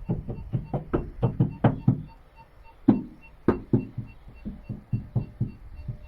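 A hand knocking repeatedly on the car's rear-mounted reverse camera and the panel around it. The knocks come fast and irregular, then more spaced out, with a few harder blows near the middle, checking whether the flickering picture is caused by a fault inside the camera. A faint electronic beep repeats quickly throughout.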